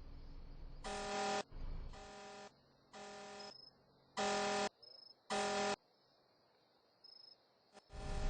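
Car alarm honking the car's horn in short blasts, five about a second apart, then going over to one unbroken horn tone near the end.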